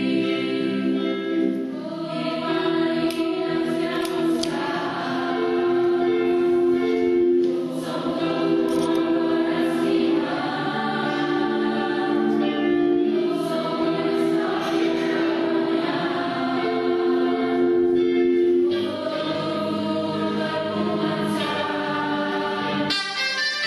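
Mixed youth choir singing in several-part harmony. Just before the end the choir breaks off and a different, higher-pitched part begins.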